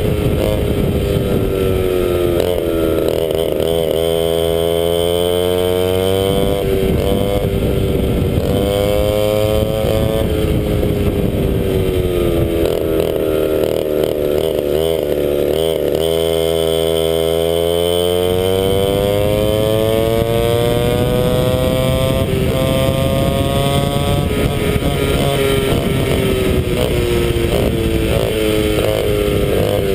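100cc McCulloch MC8 two-stroke kart engine running hard at racing speed. Its pitch falls as the kart slows for corners, in the first few seconds and again around the middle, and climbs on the straights, highest a little past two-thirds of the way through.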